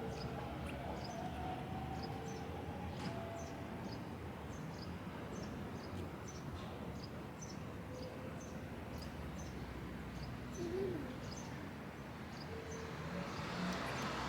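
A small bird chirping repeatedly, about twice a second, over a steady low background rumble; a broad rushing noise grows louder near the end.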